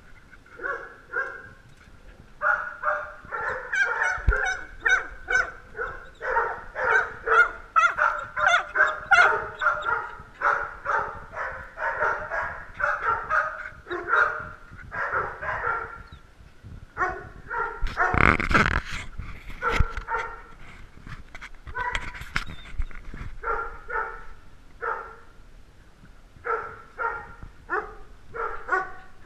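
Small dogs barking again and again in quick runs of high barks with short pauses between. A brief rough noise close to the microphone about 18 seconds in.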